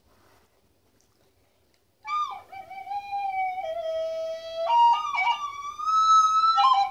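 A new plastic recorder being blown, starting about two seconds in: a held note that slides down and settles lower, then steps up to higher notes with a brief wobble between them, and stops just before the end.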